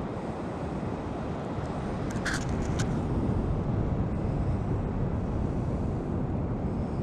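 Steady low outdoor rumble with no clear pitch, like wind and water noise on the microphone, with a few sharp clicks a little over two seconds in.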